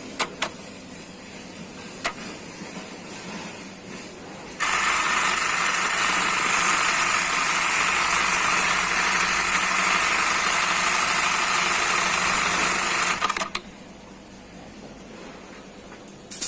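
Industrial bartack sewing machine, converted to sew an eyelet pattern, running a stitching cycle on fabric: a few sharp clicks, then the machine runs steadily for about nine seconds starting suddenly about four and a half seconds in, and stops abruptly.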